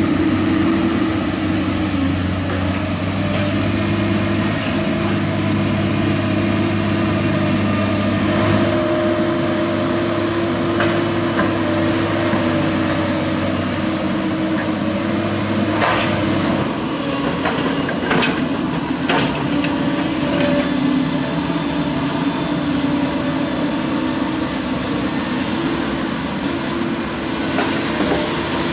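Komatsu PC200 hydraulic excavator's diesel engine running steadily under load while it digs and loads a dump truck. A few sharp metallic clanks, like bucket or rock impacts, come just past the middle, where the engine's deep note also drops.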